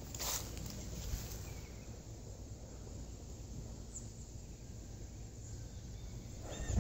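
Quiet outdoor background noise, with a short burst of noise just after the start and a faint short high chirp around four seconds in.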